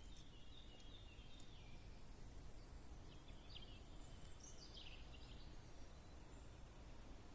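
Faint bird calls, two short bouts of high chirps and trills, over a steady low background rumble.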